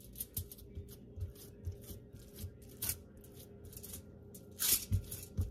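Bare hands patting and pressing raw ground-beef mixture flat on a sheet of aluminum foil: irregular soft pats with crinkles and rustles of the foil, a louder rustle about four and a half seconds in.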